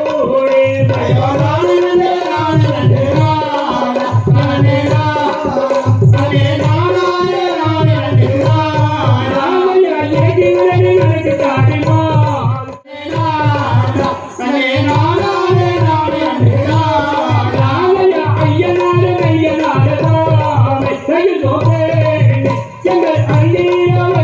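Tamil Valli Kummi folk song: a sung melody over a drum beating a steady, repeating rhythm. The music breaks off for a moment about halfway through, then resumes.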